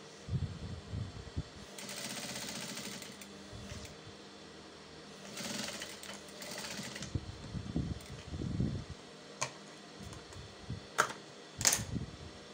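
Emel industrial sewing machine stitching in two short runs of about a second and a half each, stopping between them. A few sharp clicks and soft fabric-handling thumps follow near the end.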